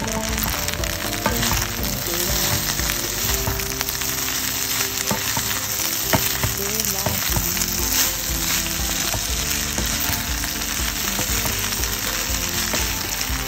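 Fried rice with ground meat, peas, carrots and corn sizzling steadily in a hot pan as it is stirred, with a couple of sharp clicks about halfway through.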